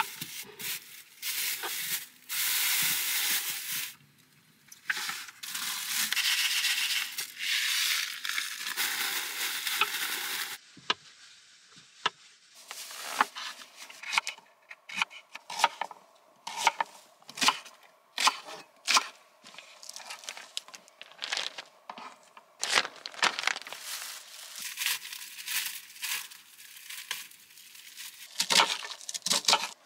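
Plastic bag crinkling and rustling as chopped vegetables go into it, then a kitchen knife chopping on a wooden cutting board in quick, irregular taps, with more bag rustling near the end.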